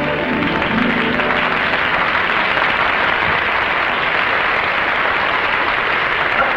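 Studio audience applauding steadily, as the band's music fades out at the start.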